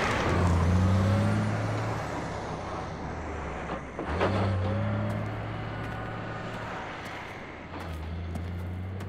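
Box truck passing close by and driving off down the highway, its rush of tyre and wind noise loudest at first and fading. A low engine drone runs under it, cutting out and coming back twice.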